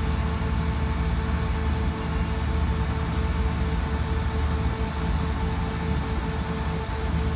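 Putzmeister SIKA PM 500-PC shotcrete machine running steadily while its spraying boom moves the nozzle head: a low machine drone with a constant mid-pitched whine.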